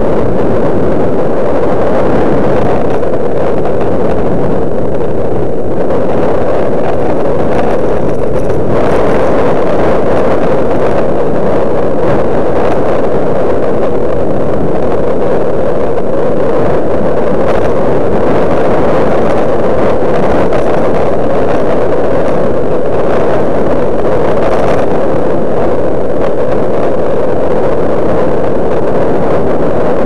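Strong headwind buffeting the camera's microphone: a loud, steady rush of wind noise with no breaks.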